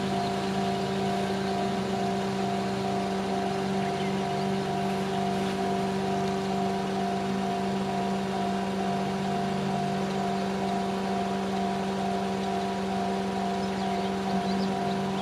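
Japanese railway level-crossing warning bell ringing in a steady repeating pattern while an electric train runs through the crossing.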